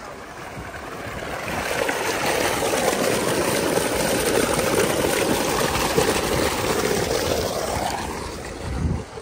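Water gushing from a large pipe and splashing into a pool: a steady rushing splash that grows louder over the first two seconds and fades near the end.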